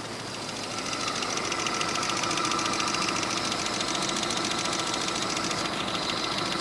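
UMZ-417 four-cylinder petrol engine running with a rapid, even metallic knock. The engine gets louder about a second in as the revs rise, and the knock keeps pace with it. The knock is the fault the recording was made to show.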